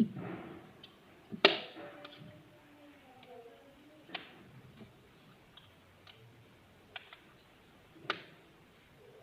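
Earphones and their packaging being handled: scattered sharp clicks and taps a second or two apart, the loudest about a second and a half in.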